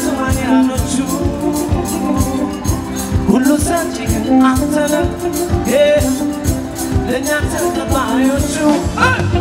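Live band music with singing voices over a steady drum beat, played through a concert sound system.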